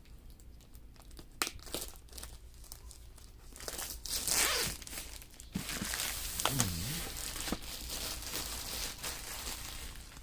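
Diamond-painting kit packaging being unwrapped by hand: a few light clicks, then from about four seconds in a burst of crinkling and tearing that goes on as rustling.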